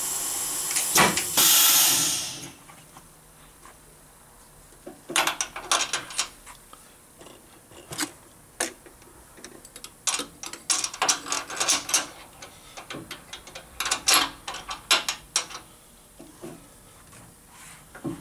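Loud hiss of compressed air from the Serdi 100 valve-seat machine, which cuts off suddenly about two and a half seconds in. After that come irregular metallic clicks and knocks as the drill-reamer and pilot tooling are changed by hand in the spindle and moved over the next valve guide.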